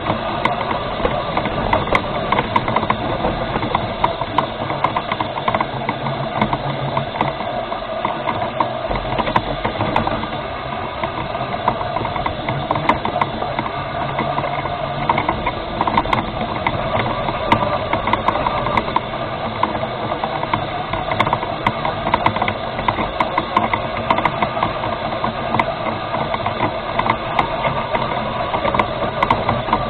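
Drive motor and gears of a remote-controlled rover running steadily, a continuous mechanical whirr with a rattle as it drives.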